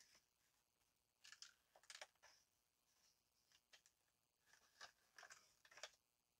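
Near silence broken by a few faint, brief paper rustles as sheets of a craft paper pad are turned and handled.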